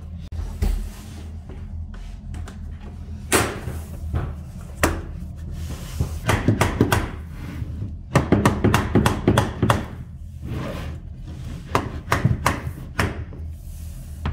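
Tapping block being struck to knock a row of vinyl planks tight against the row before it: a few single knocks, then quick runs of sharp knocks. A low steady hum runs underneath.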